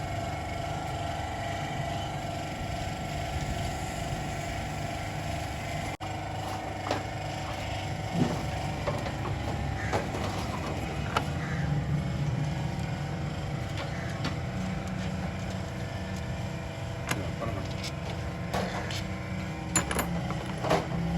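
An engine running steadily in the background, with scattered sharp metallic clicks and knocks from hand tools from about six seconds in.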